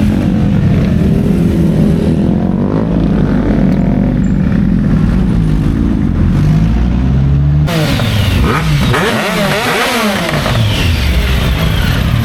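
Motorcycle engines idling and pulling away. About eight seconds in, a louder engine revs up and down several times.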